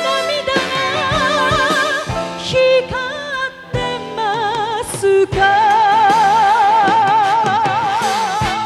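A woman singing a pop ballad with strong vibrato over instrumental accompaniment, ending in a long held note with wide vibrato from about five seconds in.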